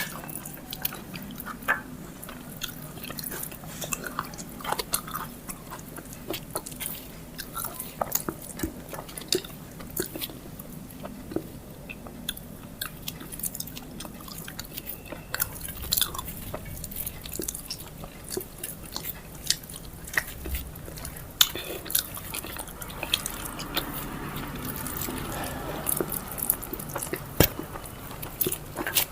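Close-up eating sounds: a person chewing and biting into food, with many short wet clicks and smacks of the mouth.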